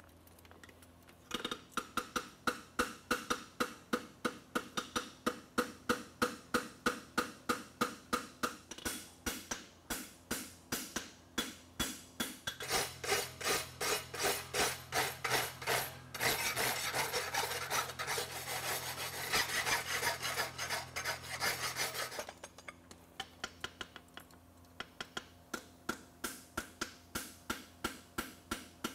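Farrier's hammer striking a forge-hot steel roadster horseshoe on an anvil, a steady run of ringing blows at about two to three a second as the shoe is shaped. From about twelve to twenty-two seconds in, a steady noise with a low hum runs under the blows.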